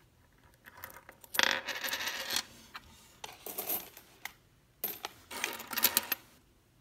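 Loose pennies clinking and sliding against each other on a wooden tabletop as a roll is spilled out and spread by hand. The clinking comes in three bursts, the loudest starting a little over a second in.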